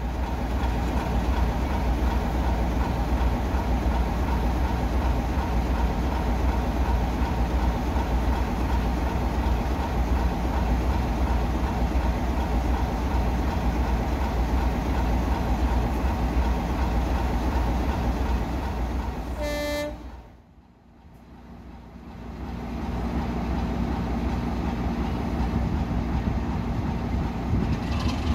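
Heritage diesel locomotive engine running with a heavy low rumble, then a brief single-note horn toot about twenty seconds in. The sound drops away abruptly just after the toot, and a diesel engine's steady drone builds again over the last several seconds.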